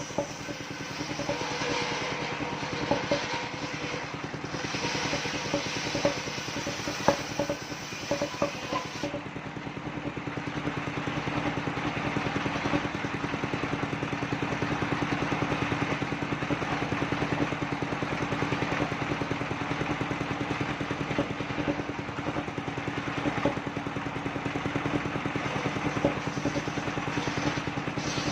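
Engine-driven mobile circular sawmill running steadily. Scattered knocks and clatter come through the first nine seconds or so, then a denser, steady noise from the saw's work carries on to the end.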